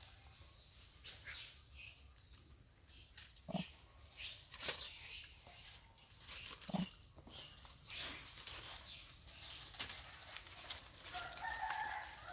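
Macaques shifting about on dry leaf litter, with frequent crackling and rustling, two short low grunts, and a brief high wavering call near the end.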